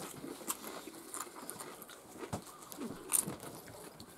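Eating sounds: chewing and the crunch of nacho chips, with scattered small clicks and one sharper click about three seconds in.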